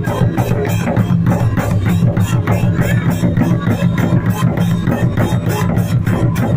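Indian folk instrument playing: a steady low drone with fast, even plucked strokes, several a second.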